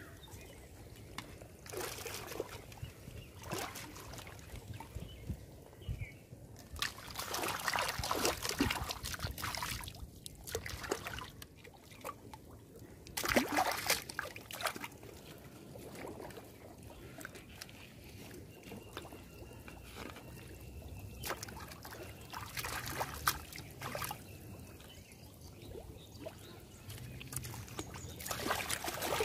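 Shallow water sloshing, trickling and splashing in several bursts as a plastic bowl is dipped and drained and a plastic bottle is dunked and set in the water.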